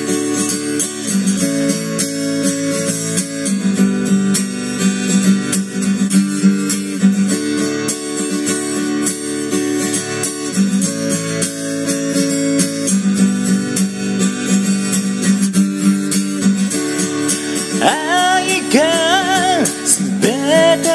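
Steel-string acoustic guitar strummed in a steady rhythm, the chords changing about every two seconds through a repeating D–A–G–D progression. Near the end a voice sings a wordless line over the strumming.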